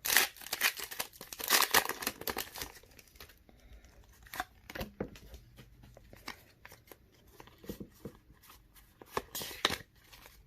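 A foil booster pack wrapper being torn open and crinkled, most densely in the first three seconds. Then sparse short clicks and rustles of cards being handled, with another burst of crinkling near the end.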